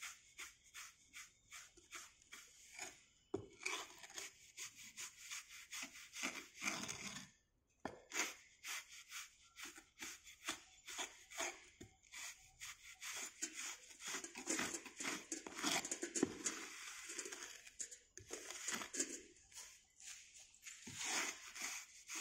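Strickle bar scraping across freshly rammed moulding sand in a moulding box, striking off the excess to level the surface. A run of short gritty scraping strokes, about three a second, with a brief break about a third of the way through.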